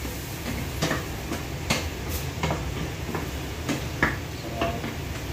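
Spatula stirring chicken pieces in a frying pan: irregular scrapes and light knocks against the pan, roughly one a second, over a steady low rumble.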